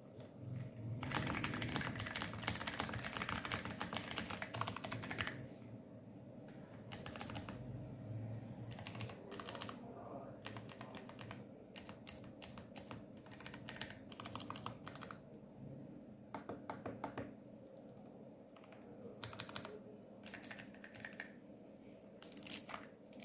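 Typing on a Royal Kludge R75 mechanical keyboard with clicky blue switches: a fast, dense run of keystrokes about a second in, then shorter bursts of key clicks separated by brief pauses.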